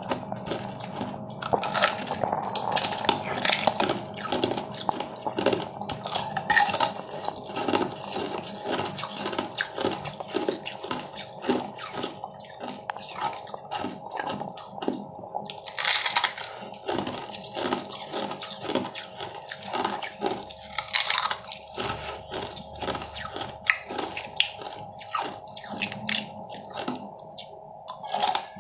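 Mouth crunching and chewing pieces of frozen yellow ice, with sharp crackles bite after bite.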